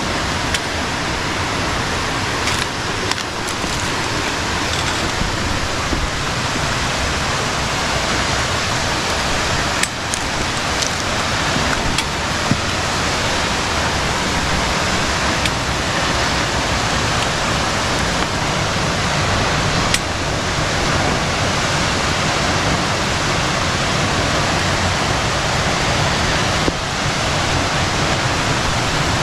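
Steady, loud rush of a waterfall's falling water, with a few faint clicks here and there over it.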